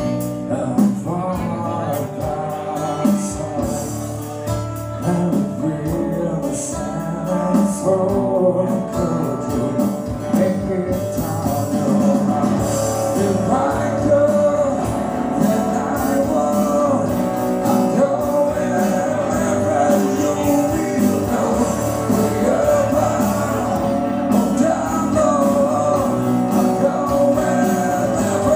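Live band music: a man singing into a microphone, accompanied by acoustic and electric guitars.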